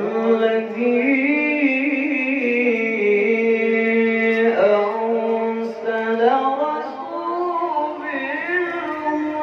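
A male qari reciting the Quran in the melodic tilawah style. He holds one long ornamented note for about four seconds, breaks, then moves into further wavering, embellished phrases.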